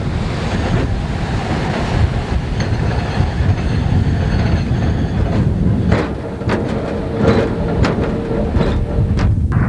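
Canadian Pacific Railway hi-rail truck riding the rails with a steady rumble. In the second half there is a run of sharp, irregular clicks as the wheels cross rail joints, and there is a faint high wheel squeal.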